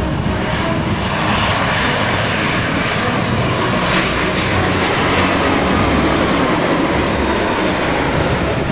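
Jet engines of a Boeing 787 on final approach, gear down, flying low past: a steady loud rushing sound, with a whine that drops in pitch in the second half as the airliner goes by.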